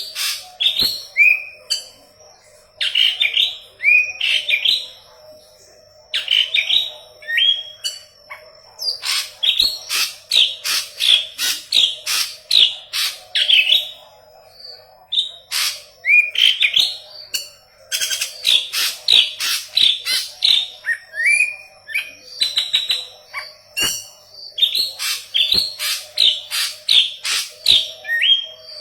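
A yellow-headed leafbird ('murai daun kepala kuning') singing in rapid phrases of sharp chips and short whistles that slur downward in pitch. The phrases come every few seconds with brief pauses between them, over a faint steady hum.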